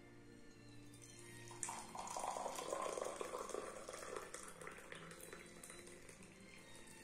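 Hot liquid poured from a stainless-steel French press into a ceramic mug. The splashing pour starts about a second and a half in, is loudest for the next two seconds and tails off near the end. Soft background music plays underneath.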